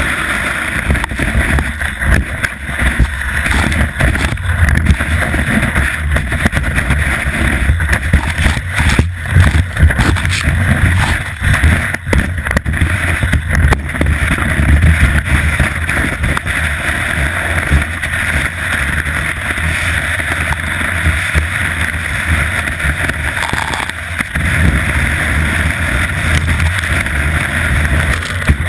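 Skis scraping and hissing over packed snow at speed, mixed with wind rushing over the camera microphone, with scattered knocks from bumps. There is a louder scrape near the end as snow sprays up.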